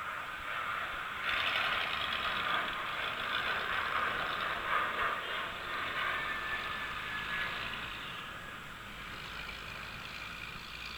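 Boeing 737-700's twin CFM56-7B turbofan engines at takeoff power: a rushing jet roar that swells sharply about a second in and eases off after about eight seconds.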